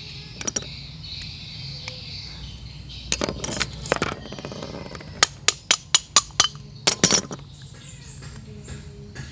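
Tools tapping and clinking against the parts of an old motorcycle carburetor, with a quick run of about six sharp taps midway.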